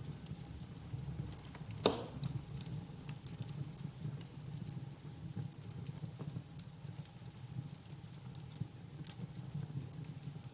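Wood fire burning: a steady low rumble under scattered sharp crackles, with one loud pop about two seconds in.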